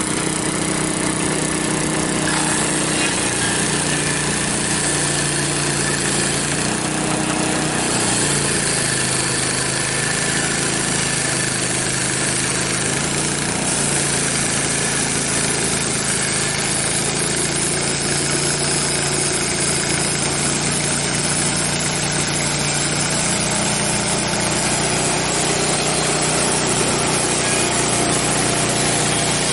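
The gas engine of a Frontier OS23 portable bandsaw mill runs steadily at speed while the band blade saws through a maple log. The engine note dips and recovers as the load changes.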